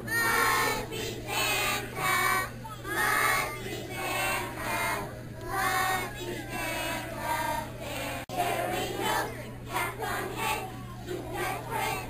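Group of young children singing together in short phrases, with a momentary dropout in the sound about eight seconds in.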